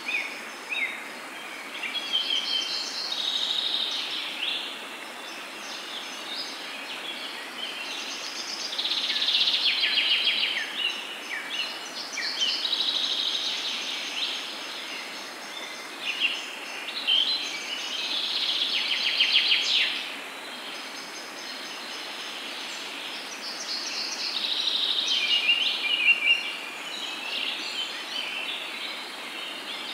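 Birds chirping and singing in phrases of a few seconds with short pauses between them, over a steady hiss.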